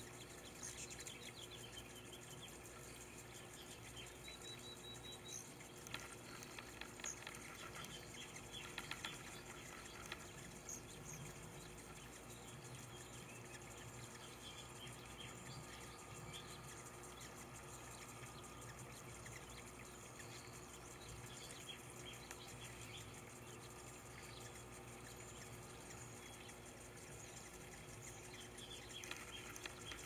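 Faint steady trickle of water running from a spout into a shallow bird-bath basin, with a few brief splashes from bathing hummingbirds.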